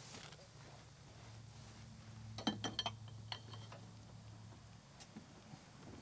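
A few faint, light clicks and clinks from hands working parts in a pickup's front wheel well: a quick cluster about two and a half seconds in, then one more.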